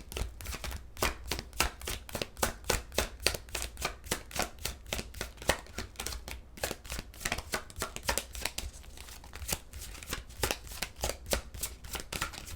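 A tarot deck being shuffled by hand: a steady run of short card slaps, about three to four a second.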